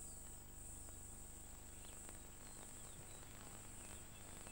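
Faint wildlife ambience: a steady high-pitched insect chorus with a few faint, short chirps.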